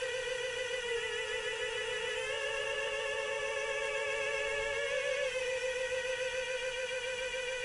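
Electronic ghostly sound from 1980s battery-operated animated Halloween figures: one wavering, eerie tone held on long notes, stepping to a new pitch every second or two.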